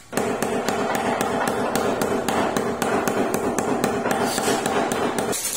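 Rapid, even tapping on a ceramic floor tile, about four knocks a second, over a steady hum; it stops suddenly near the end.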